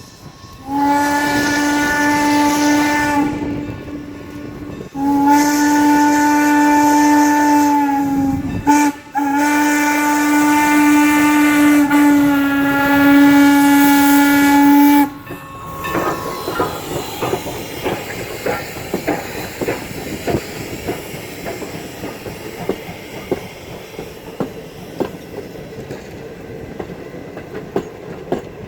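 Steam locomotive whistle blowing the grade-crossing signal, long, long, short, long, with the last blast about six seconds. After it the train rolls by, its wheels clicking over the rail joints.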